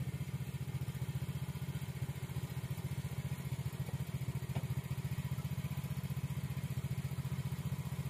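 A small engine running steadily with a low, even, rapidly pulsing throb.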